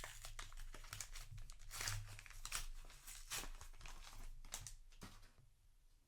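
A trading-card booster pack wrapper being torn open and crinkled in the hands, a run of sharp crackles that dies away near the end.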